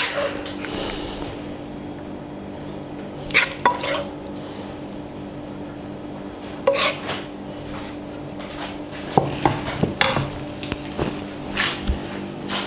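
A serving spoon scraping and clinking against a pot and a ceramic bowl as bolognese sauce is spooned onto spaghetti: a few short clinks around three and a half and seven seconds in, then a cluster of them near the end. A faint steady hum runs underneath.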